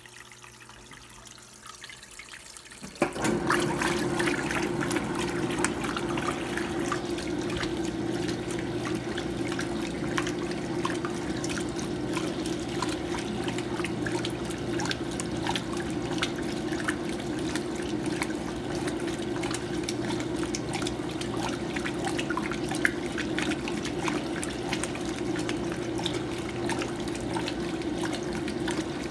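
Electrolux Prosdócimo washing machine in its rinse cycle: a steady rush of water with a hum starts suddenly about three seconds in and runs on evenly, with small splashes and drips.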